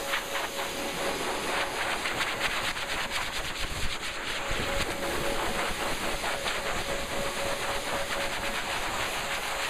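A dryer blowing air through a Bernese Mountain Dog's coat: a steady rush of air with a constant whine, and crackling as the airflow and fur hit the microphone.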